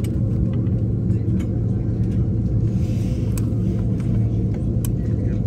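Steady low hum inside an Airbus A330 airliner's cabin on the ground after landing, with a couple of faint clicks.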